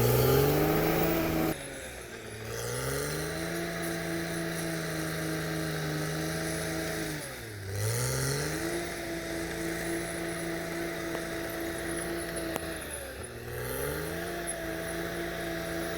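Caterpillar D6R XL bulldozer's diesel engine running at high revs. Its pitch sags and then climbs back three times, about two seconds in, midway and near the end, as the engine lugs under load and recovers.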